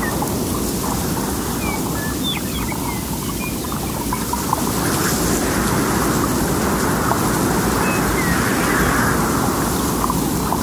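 Open rice-paddy ambience: a steady low rushing rumble that swells from about halfway through, with faint short chirps of wild birds scattered over it.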